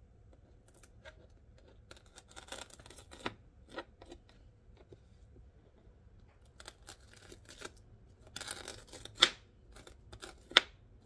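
A spoon scraping the seeds and ribs out of halved jalapeño and serrano peppers on a cutting board, in short scraping strokes. Two sharp clicks stand out near the end.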